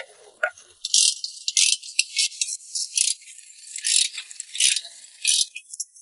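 Dry, high-pitched rattling in a dozen or so quick, irregular bursts, with nothing low beneath it.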